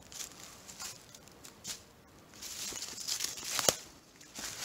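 Footsteps crunching through dry leaf litter on a forest floor, irregular crackling steps, with one sharper snap about three-quarters of the way through.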